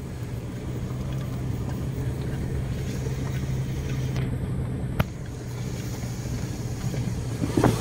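Car driving on an unpaved gravel road, heard from inside the cabin: a steady low engine and tyre hum. A single sharp click about five seconds in.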